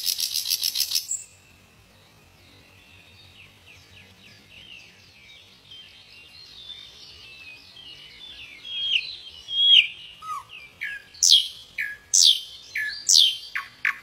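Common nightingale singing. A fast run of repeated notes stops about a second in, then soft whistled notes slowly swell in a crescendo. Near the end come several loud down-slurred whistles and the start of another rapid run of repeated notes.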